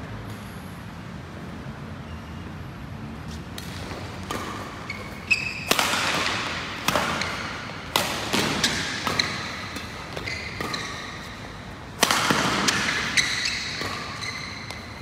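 Badminton rally: rackets striking a shuttlecock with sharp cracks, about one every half to one second from about five seconds in, echoing in a large hall.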